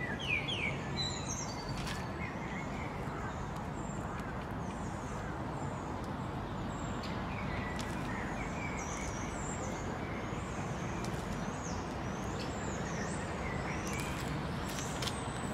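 Small birds chirping repeatedly in short calls over a steady background hiss and hum of outdoor noise.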